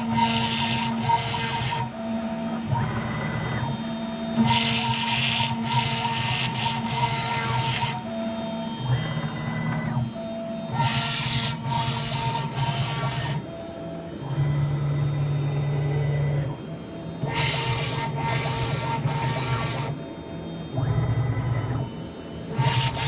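Small milling machine cutting gauge face plates to shape. Bursts of high cutting hiss lasting two to three seconds come about every six seconds, with a lower motor hum that shifts pitch between the cuts.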